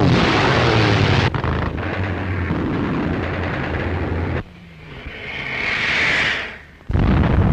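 Aircraft engines droning, with a falling sweep near the start, until a cut about four and a half seconds in. Then a rush of noise swells and fades, and a sudden loud blast hits near the end.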